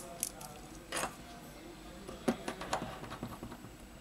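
Light clicks and taps of small metal and plastic parts being handled and pressed into place inside an opened Xiaomi Mi 9 SE smartphone, with a sharper click about a second in and a few quick clicks a little past halfway.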